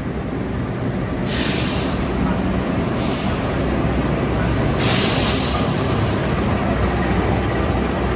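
Passenger train rumbling steadily, with three short bursts of air hiss about one, three and five seconds in, typical of air brakes on a train stopping at a station.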